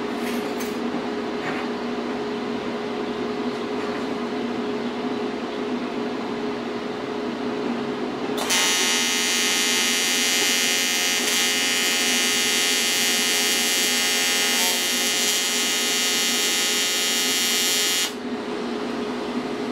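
AC TIG welding arc on aluminum buzzing steadily for about ten seconds, starting about eight seconds in and cutting off suddenly near the end. Under it and before it, a low steady hum.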